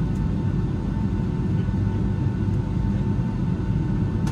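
Boeing 757-231 jet engines running at low power, heard from inside the passenger cabin: a steady low rumble with a thin, even whine above it.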